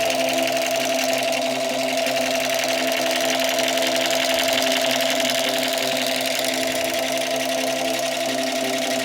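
A battery-powered toy running: a steady, fast mechanical rattle from its small motor, with electronic tones that step between a few pitches.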